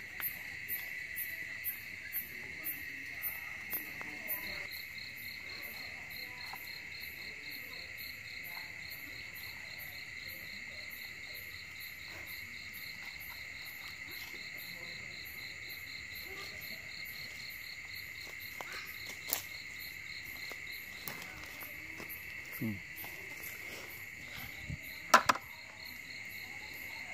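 Night chorus of crickets and other insects: a steady high trill with a faster pulsing chirp above it. In the first few seconds there are faint ticks about twice a second, and near the end a few sharp knocks, the loudest about 25 seconds in.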